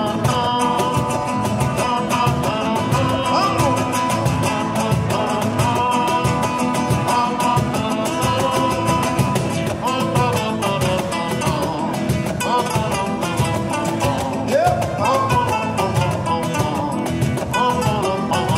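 Live Latin band music: acoustic guitars strumming a steady rhythm over a cajón beat, with a voice singing at times.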